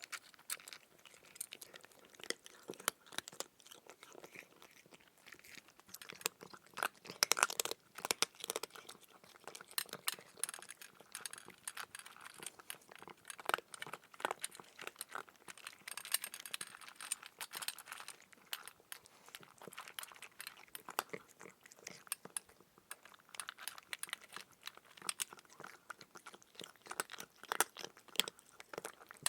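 Chewing of crunchy food: a dense, irregular run of small crunches and crackles, thickest about a quarter of the way in and again just past halfway.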